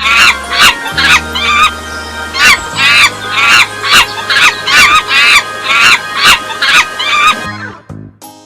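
A large bird honking over background music, in short sharp calls about two a second. The calls stop about a second before the end and the music carries on alone.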